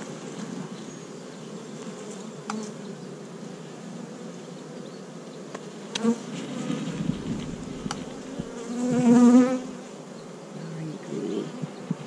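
A honeybee colony humming steadily around an opened hive as its frames are lifted. Past the middle, one louder buzz with a wavering pitch swells and fades over about a second, and there are a couple of light clicks.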